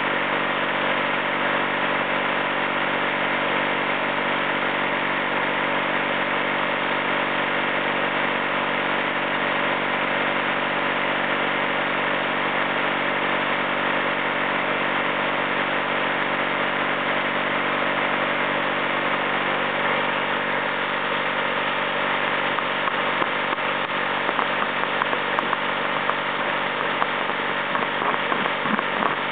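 Two-cylinder 18 HP Briggs & Stratton gasoline engine running steadily at constant speed, driving the water chiller's automotive-type refrigeration compressor and belt-driven water pump.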